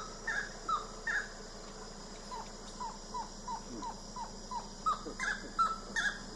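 Saracura (wood-rail) calling: a long run of short, repeated call notes, about three a second, softer around the middle and louder again near the end.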